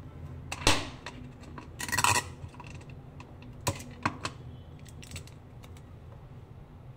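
Clear sticky tape being handled at a plastic desk dispenser: a sharp click, then a short rasp about two seconds in as tape is pulled off and torn, followed by a few light clicks and taps of the dispenser and fingers on the tabletop.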